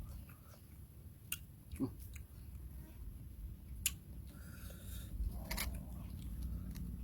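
A person eating: quiet chewing and biting, with a few sharp clicks spread through it, over a low background rumble.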